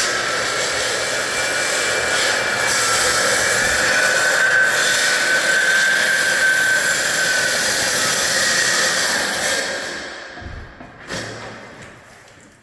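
Electric saw running and cutting, a steady loud whine over rasping noise, which winds down and stops about ten seconds in; a single knock follows.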